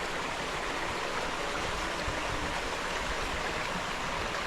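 A flowing creek, a steady rush of running water.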